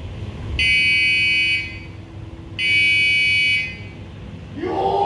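Electronic practice-timer buzzer giving two long beeps of about a second each, marking the end of a kendo practice round. A loud shouted voice begins near the end.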